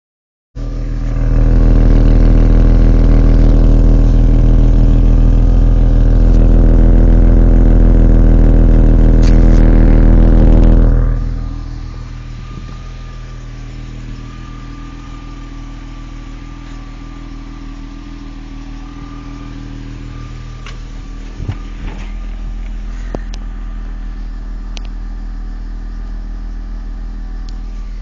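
BMW E36 M3 3.0's inline-six engine running loudly and steadily for about ten seconds, then dropping to a much quieter steady idle. A couple of faint clicks sound about two-thirds of the way through.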